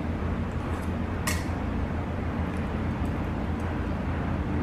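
A single sharp click of chopsticks against a bowl about a second in, over a steady low background rumble.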